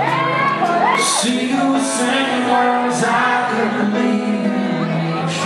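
Live band playing a song's instrumental intro: sustained chords underneath, with cymbal-like strikes about once a second. A few wavering audience whoops ride over the first second or so.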